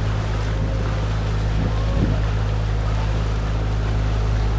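Canal tour boat's engine running steadily: an even, unchanging low hum.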